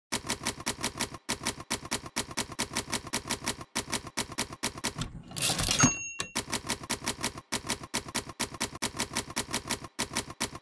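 Manual typewriter keys clacking rapidly, about six keystrokes a second. A little over five seconds in, the carriage is returned with a swish and the end-of-line bell dings, then typing resumes.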